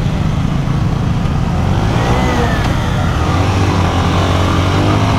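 Lifan KPR motorcycle engine running steadily at low road speed among other motorcycles, with rushing wind and road noise.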